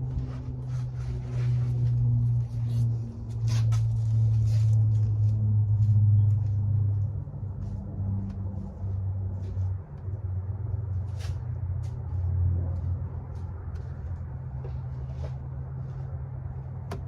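Wind buffeting the microphone: a low rumble that swells and fades, loudest a few seconds in and dropping briefly about ten seconds in, with faint scattered clicks.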